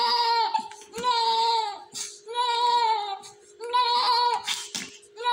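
Newborn baby crying in four long, high-pitched wails of about a second each, with short breaths between. The baby is being handled while a nasogastric tube is inserted and taped.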